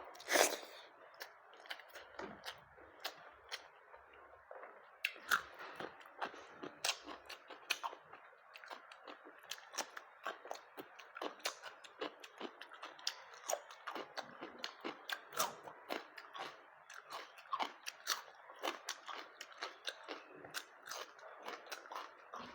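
A person chewing and eating with the mouth: many short, irregular wet clicks and crunches, several a second, with a louder crunch about half a second in.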